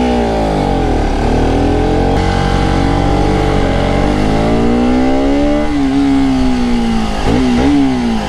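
Motorcycle engine under way with a passenger aboard, its pitch climbing for several seconds as it accelerates, then easing off, with a quick dip and recovery near the end.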